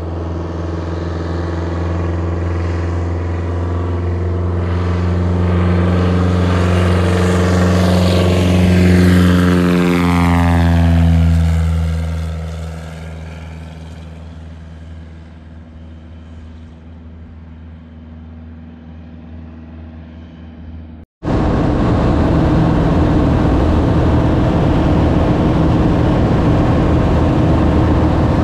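A single-engine bush plane taking off and passing low overhead: its engine and propeller drone grows to a peak about ten seconds in, then drops in pitch and fades as it flies away. About 21 seconds in the sound cuts abruptly to the loud, steady drone of a light plane's engine and propeller heard from inside the cabin.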